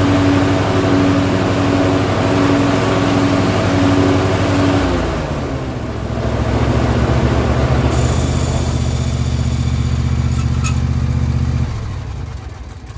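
John Deere S160 lawn tractor engine running at a fast steady speed, dropping to a lower steady speed about five seconds in, then dying away near the end.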